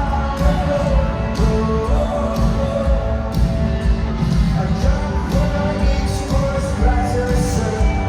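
Live rock band performing loudly: a sung melody over band instruments with a steady drum beat.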